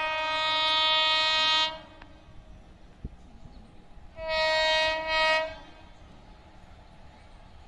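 Air horn of an approaching Indian Railways locomotive sounding twice: a long steady blast that ends about a second and a half in, then a shorter blast about four seconds in that breaks briefly near its end. Distant hum of the approaching train between the blasts.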